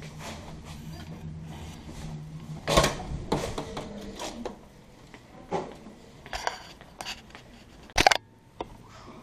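Walking through a building's doors and corridor: a low steady hum at first, then irregular clacks, footsteps and knocks. The sharpest clack comes about three seconds in and a loud knock about eight seconds in.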